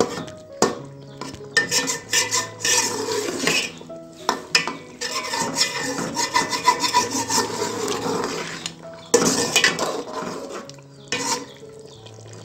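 A metal spatula scraping and clanking against a metal pot as a thick beef curry is stirred and fried in ghee (bhuna). It comes in bursts with short pauses about four and nine seconds in, and eases off near the end.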